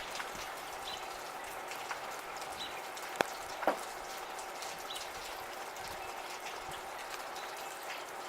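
Light rain falling steadily, with many small drops ticking and two louder, sharper drips a little past three seconds in. A short, faint bird chirp recurs about every two seconds.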